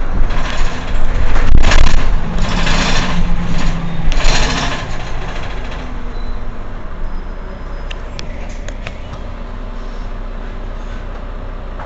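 Mercedes-Benz Citaro C2 Euro 6 city bus idling at a standstill. Its air system lets out several loud hisses in the first few seconds, then the diesel engine settles into a steady low idle.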